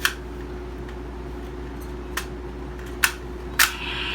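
Plastic toy gun clicking as its mechanism is worked: four sharp clicks, one right at the start, then about two, three and three and a half seconds in.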